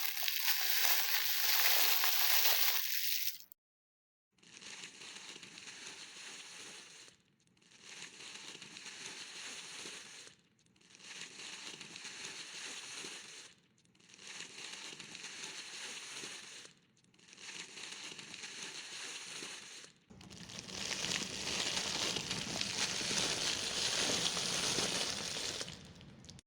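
Foley sound effects: a steady crackling, crushing noise in several separate takes. The first and last are louder and about three to six seconds long, with five quieter takes of about three seconds each between them, split by short gaps.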